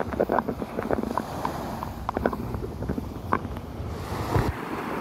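Small waves washing and lapping onto a sandy beach, with wind buffeting the microphone in irregular gusts.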